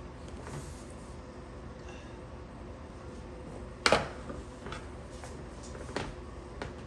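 Sharp click of hand tools on wire about four seconds in, likely scissors stripping cord insulation, followed by a couple of fainter clicks, over a low steady background hum.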